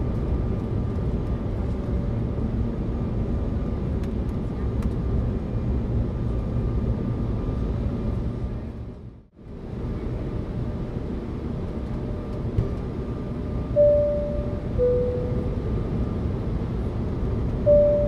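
Airliner cabin noise, a steady low drone, with the seat-belt sign's two-tone chime: a short high note then a slightly lower one, about fourteen seconds in and again starting at the very end. The drone fades out and back in about nine seconds in.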